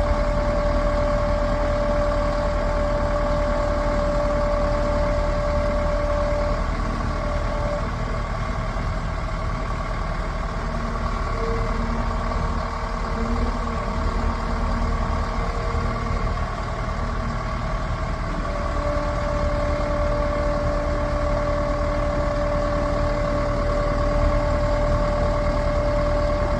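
Heavy machinery's diesel engine running steadily at idle, its note shifting from about six seconds in and settling back near two-thirds of the way through.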